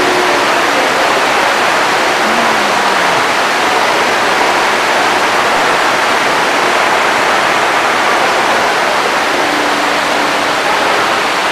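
Loud steady rushing noise, like heavy rain or a strong hiss, with no rhythm and no break.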